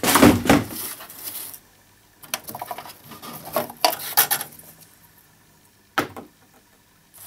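Paper rustling and light plastic clatter as a paper strip is handled and laid on a laser printer's control panel, with a single sharp click about six seconds in.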